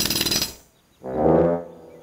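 Cartoon sound effects. A loud buzzing rattle stops about half a second in, and a little later comes a short, brass-like trumpeting call from the cartoon elephant.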